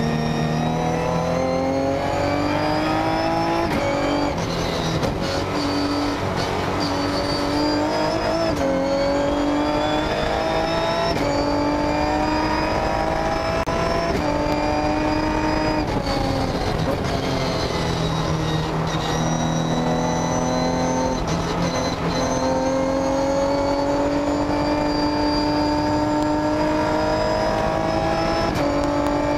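Ginetta G50 GT4 race car's V6 engine heard from inside the cabin under hard acceleration, its pitch climbing and dropping back at each quick upshift every two to three seconds. About halfway through the pitch falls as the car slows, then it climbs through the gears again.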